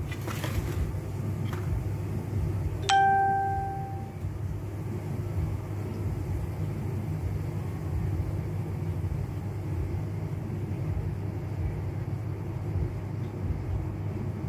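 A single bright ding about three seconds in, fading over about a second, over a steady low background hum.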